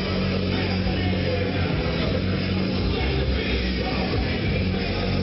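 Loud rock music with held bass notes and singing.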